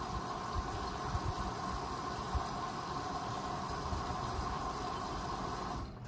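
Hoover front-loading washing machine running with a water-soaked carpet in the drum: a steady motor hum with a thin whining tone over irregular low thuds. The machine sound stops abruptly near the end.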